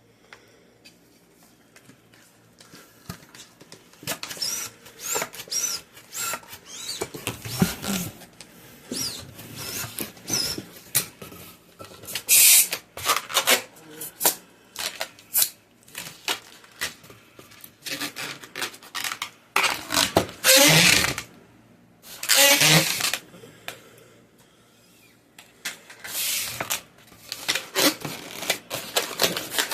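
Latex modelling balloon being handled and twisted: irregular rubber squeaks, creaks and rubbing, with two short rushes of air about twelve and twenty-two seconds in.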